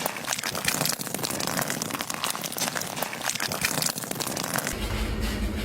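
Continuous rapid crinkling and crackling, with a low steady hum coming in near the end.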